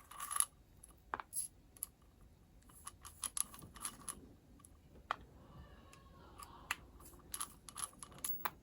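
Small irregular clicks and taps of metal parts and a small hex driver as an RC car's differential case is taken apart by hand, with a louder clatter right at the start.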